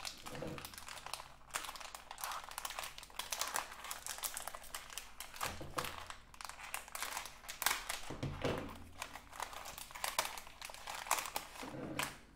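Plastic parts bag crinkling and rustling in the hands, with many small crackles coming and going.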